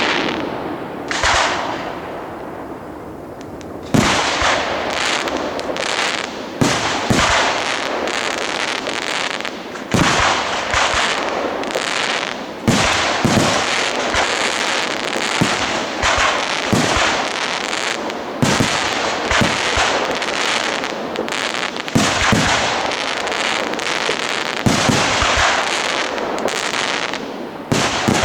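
Professional fireworks display: shells bursting one after another, sharp bangs about every second over a dense steady noise. A brief lull comes near the start before the bangs pick up again about four seconds in.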